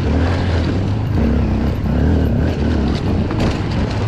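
Dual-sport motorcycle engine running at low revs on a rocky gravel track, its note easing off and picking up again with the throttle. There is a sharp click a little past three seconds in.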